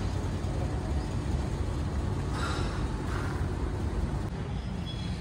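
Steady low vehicle rumble with a noisy haze above it, like motorcycle running and wind noise on the microphone, with brief hissy swells about two and a half and three seconds in.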